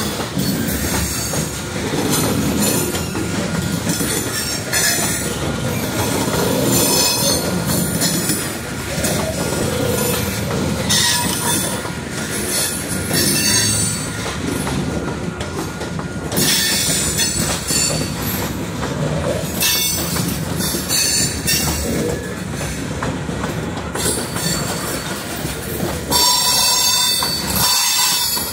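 Freight train of covered hopper cars rolling past close by: a steady rumble of steel wheels on rail, with high-pitched wheel squeals that come and go many times.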